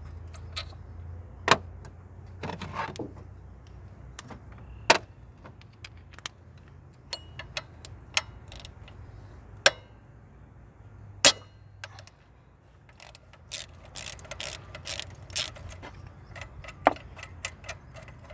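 Ratchet wrench with a 15 mm socket loosening an alternator mounting bolt: scattered sharp metal clicks and clinks of the tool on the bolt. About three quarters of the way through comes a quick run of ratchet clicking as the bolt is spun out.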